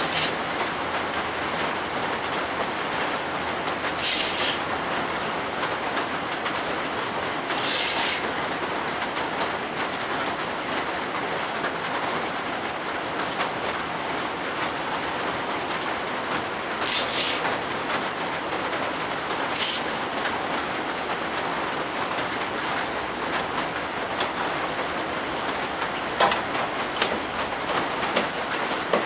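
A steady rushing hiss throughout, broken by four short, sharp hissing scrapes about 4, 8, 17 and 20 seconds in, and a few light ticks near the end.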